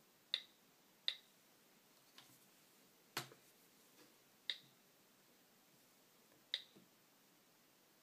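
Short, sharp clicks, about five spread irregularly, as a fingertip taps and types on an iPad's touchscreen.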